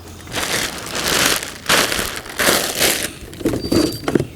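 Packaging being handled and rustled in three or four bursts, as parts are pulled from the box of a new trimmer.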